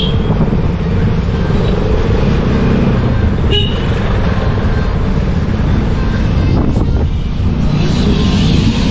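Motorcycle engine running steadily at riding speed, with wind rushing over the microphone. Two brief high-pitched beeps, one at the start and one about three and a half seconds in.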